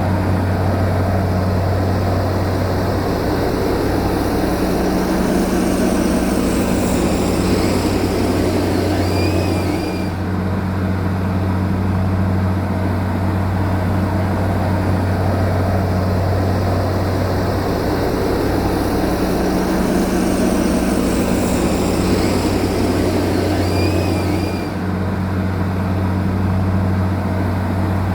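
Bulldozer's heavy diesel engine running steadily with a deep, even drone. The sound eases briefly twice, about fifteen seconds apart.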